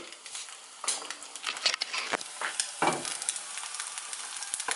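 An egg frying in oil in a cast iron frying pan: a steady sizzle, with a few short taps and clicks about one, two and three seconds in.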